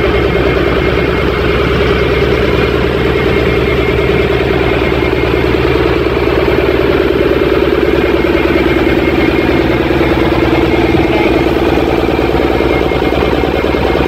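Large engine of the heavy recovery equipment running steadily at a constant speed, a loud continuous drone with no revving.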